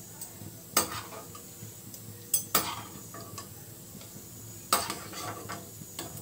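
Metal spatula clinking sharply against the frying pan a few times, once about a second in, twice close together around two and a half seconds, and again near five seconds, over a faint steady sizzle of malpua frying in hot oil.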